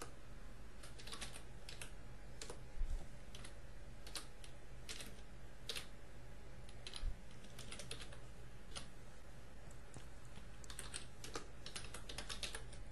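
Typing on a computer keyboard: scattered single keystrokes with pauses, turning into a quicker run of keys near the end, with a dull knock about three seconds in and again about seven seconds in, over a faint low hum.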